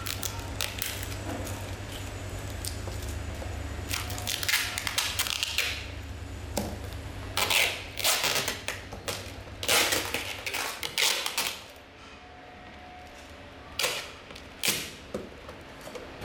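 Factory workshop handling noise: irregular clatter and knocks of parts being handled, over a steady low machine hum that drops away about six seconds in.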